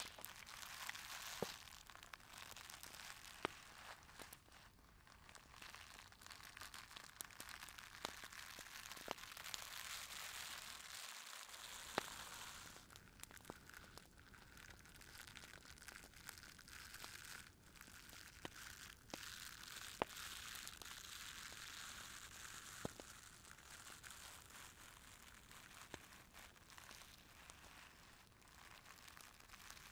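Faint crackling and crinkling texture over a soft hiss, dotted with scattered small clicks.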